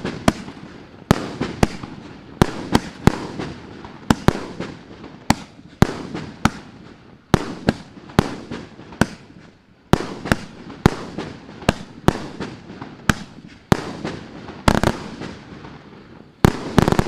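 A Maxsem PARADISE ISLAND 1.5-inch, 49-shot firework cake firing its shells. It gives sharp bangs about one or two a second, each trailing off in a short rumble, with a quick cluster of bangs near the end.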